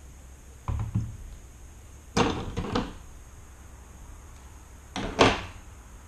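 Handling noise at a fly-tying bench: three short bursts of knocks and clunks as a large reel of gold tinsel is worked with, the loudest near the end.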